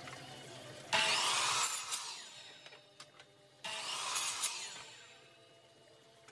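Miter saw cutting through a weathered scrap-wood board twice: each cut starts suddenly, lasts about a second, and fades as the blade spins down.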